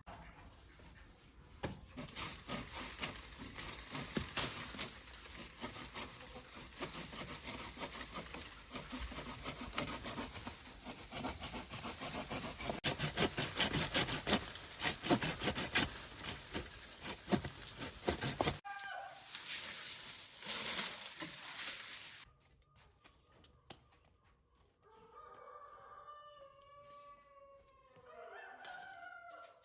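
Dense crackling and scratching for about sixteen seconds, loudest a little past the middle, then a lighter stretch of it that stops. Near the end, after a quiet gap, a chicken calls several times.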